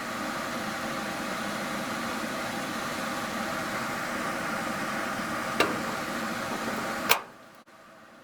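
National kitchen range hood exhaust fan running steadily with a motor hum and rushing air. Two clicks, the louder about seven seconds in, after which the fan sound falls away as it is switched off.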